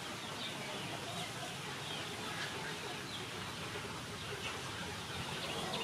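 Outdoor ambience with birds and chickens calling faintly in the background, short chirps and clucks scattered throughout.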